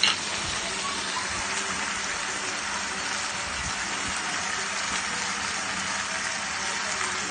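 Shrimp curry bubbling and sizzling in a kadai on the stove: a steady hiss, with one sharp click at the very start.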